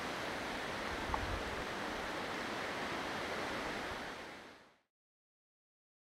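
Steady wind rushing through low mountain shrubs and grass, with a single small tick about a second in. The sound fades out to silence about four and a half seconds in.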